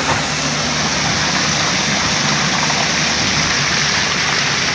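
Steady rushing of water pouring down the enclosed tube of a water slide.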